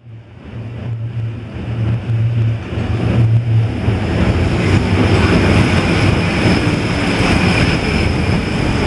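Electric tram running on an elevated steel trestle overhead, a steady rumble of wheels on rail that grows louder over the first few seconds and then holds, with a thin high whine above it.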